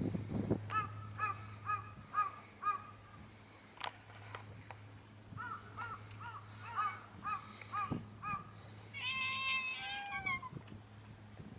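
Animal calls: short high cries repeated in two runs of about two a second, then one longer cry that falls in pitch near the end.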